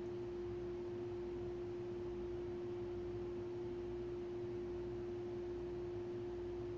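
A steady pure tone at one medium-low pitch, held without any change, over a faint hiss.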